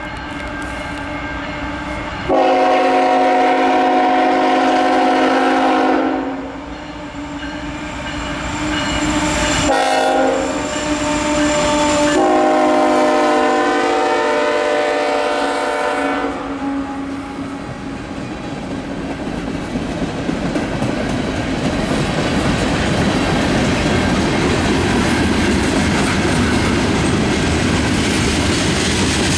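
Diesel freight locomotive horn sounding for a grade crossing: a long blast, a short one, then a long one whose pitch drops slightly as the lead units go by. The locomotives and the freight cars then roll past close by with a steady, growing rumble of wheels on rail.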